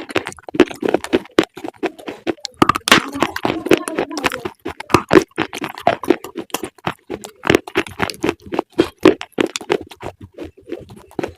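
Close-miked eating of crunchy food: a fast, irregular run of sharp crunches and cracks as it is bitten and chewed.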